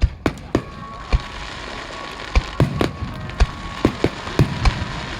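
Starmine fireworks barrage bursting overhead: about a dozen sharp bangs in quick, irregular succession, some only a fraction of a second apart, over a continuous rumble of further shells.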